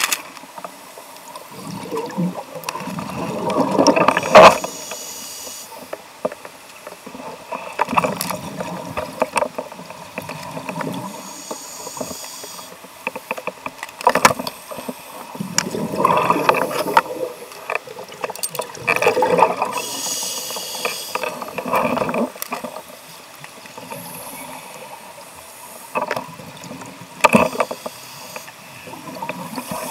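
Scuba regulator exhaust bubbles heard underwater through a sealed camera housing: bursts of bubbling every few seconds, with sharp clicks now and then.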